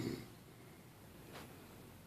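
A snore dies away at the very start, followed by a quiet pause between snores with one faint click about one and a half seconds in.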